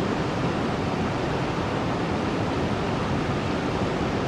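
River water rushing steadily, an even rush with no breaks.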